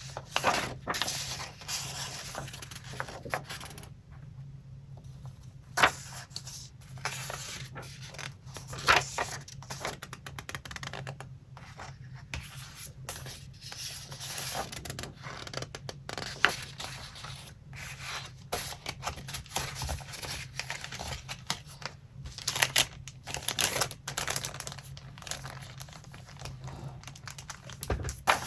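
Paper being handled for a collage: irregular rustling, scraping and crinkling, with a few sharp clicks or taps now and then.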